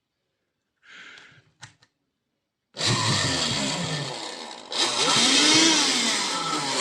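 Car vacuum cleaner, rewired to run from a cordless-drill battery, gives a brief buzz and a couple of clicks as its leads meet the terminals. It then starts and runs loudly, its pitch wavering, and gets louder a couple of seconds in.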